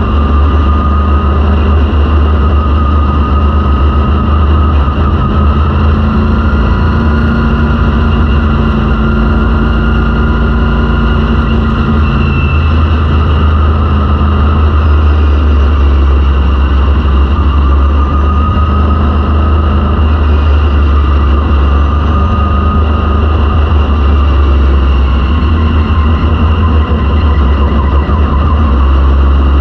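Vintage modified race car's V8 engine running loud and steady, with small slow rises and dips in pitch.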